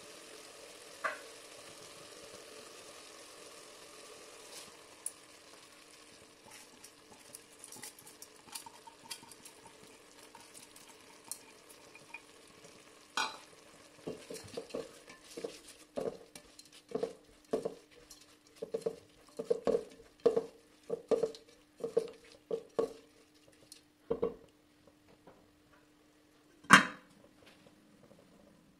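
Pulao masala sizzling softly in an aluminium pot. Rice is then stirred in with a silicone spatula, in regular strokes about once or twice a second. Near the end a metal lid is set on the pot with one loud clank.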